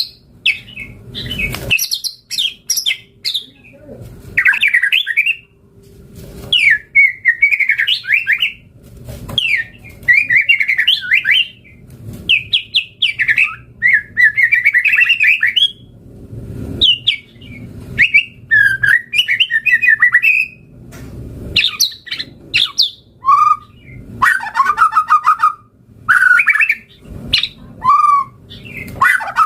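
White-rumped shama singing a loud, varied song of rapid chattering and trilled phrases, mostly high-pitched, delivered in runs separated by brief pauses.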